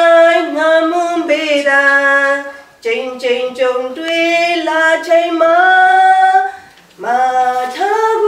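A woman singing solo, unaccompanied, in long held notes, in three phrases with short pauses for breath between them.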